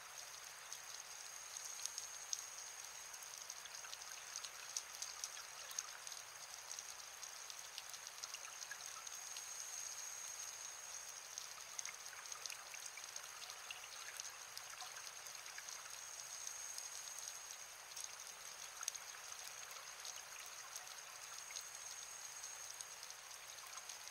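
Underwater reef ambience picked up by a dive camera: a steady crackle of many scattered sharp clicks over a hiss, with a thin steady high tone running through it.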